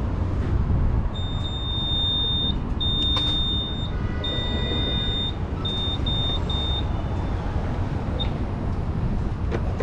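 A series of high-pitched electronic beeps over the steady low rumble of a car: three long tones, then three short ones, stopping about seven seconds in.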